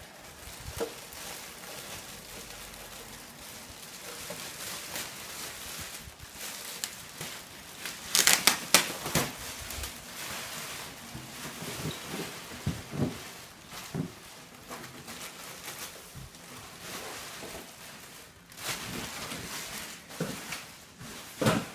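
Clear plastic wrapping being pulled off and crumpled: steady crinkling and crackling, loudest in a burst of rustling about a third of the way in, with a few light knocks.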